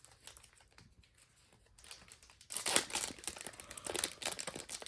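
Foil trading-card booster pack wrapper crinkling as it is handled and torn open, starting about halfway in as a dense, crackly rustle.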